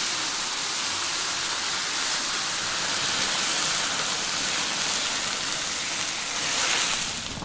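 Boiling water poured from an electric kettle into a large iron wok of fried fish, hissing and sizzling steadily as it hits the hot metal and raises steam, fading near the end.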